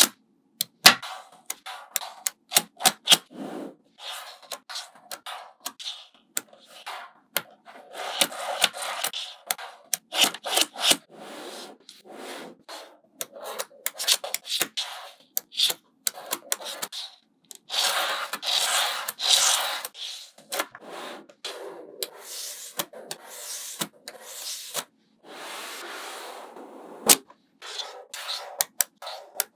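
Small magnetic balls clicking and snapping together one after another, with stretches of rubbing and scraping as the balls are slid and pressed into shape.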